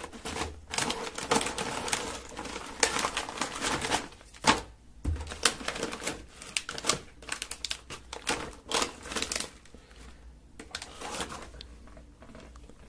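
Hands rummaging through a box of wrapped Japanese candies, close to the microphone: plastic wrappers crinkling and packages clicking and tapping in quick, irregular clusters, thinning out near the end.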